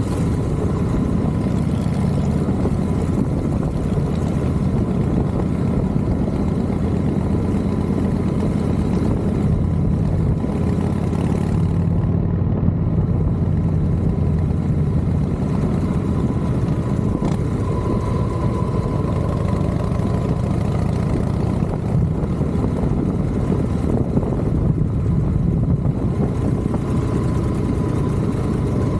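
A motorcycle running steadily on the move, its engine mixed with steady wind noise.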